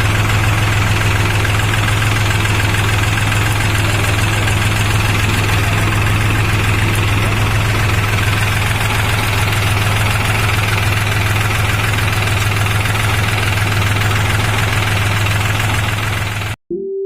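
New Holland TT4.55 tractor's diesel engine running steadily with a constant low hum, cutting off abruptly near the end.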